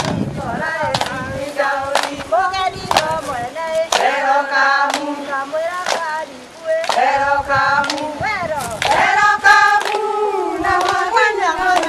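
A group of voices singing together, with hand claps sounding through the singing.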